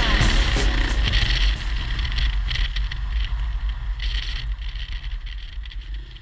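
Supermoto motorcycle's single-cylinder engine running as the bike is held up in a wheelie, heard from a helmet camera with wind noise and uneven surges, fading out near the end.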